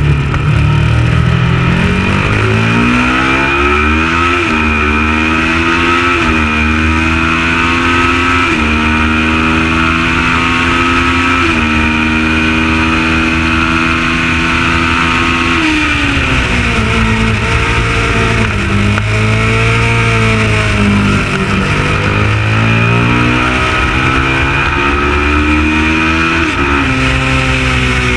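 Kawasaki ER650's parallel-twin engine under hard acceleration, its pitch climbing and stepping down at each upshift through the first half. It then falls away as the bike slows with downshifts and climbs again towards the end.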